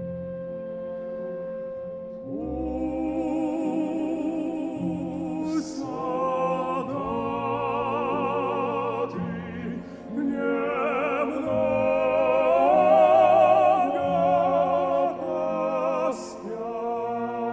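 Male operatic voice singing with strong vibrato over a symphony orchestra. The orchestra holds soft sustained notes for about two seconds before the voice comes in louder.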